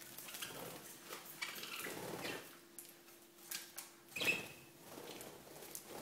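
Budgies scrabbling and fluttering in a bunch of carrot tops hung in their wire cage: leaves rustling, claws clicking on the bars and wings flapping, faintly. A short, sharper chirp-like sound about four seconds in is the loudest moment.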